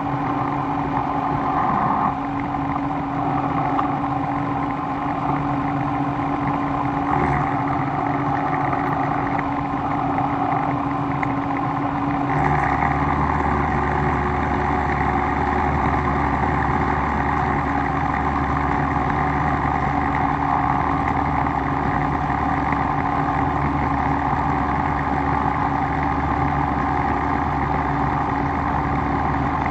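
A workshop machine running steadily with a motor hum. About twelve seconds in, a deeper low hum joins and stays.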